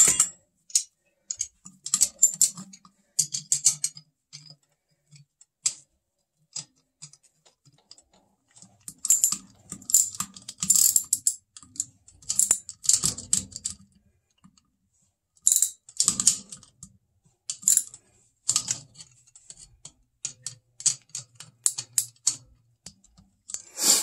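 Hand wrench working the blower motor's mounting-bracket bolt loose: bursts of rapid metallic clicks, with short pauses between the bursts.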